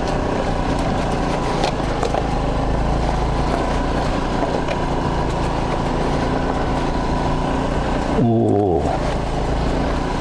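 Honda Lead 125 scooter's single-cylinder engine running under way, with wind and road noise. About eight seconds in the throttle closes: the engine pitch falls and the wind noise drops as the scooter slows.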